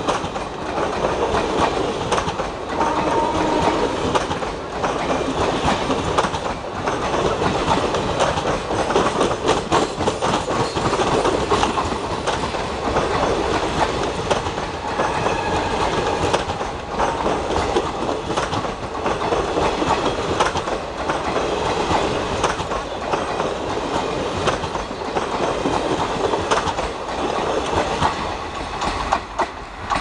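Passenger coaches of an express train rolling past close by at speed, wheels clattering over the rail joints in a steady clickety-clack. The sound falls away near the end as the last coach goes by.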